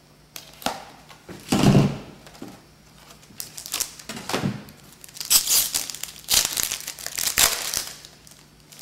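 Packaging of a trading-card mini box being torn open and crinkled by hand, in several irregular rustling bursts that are busiest in the second half.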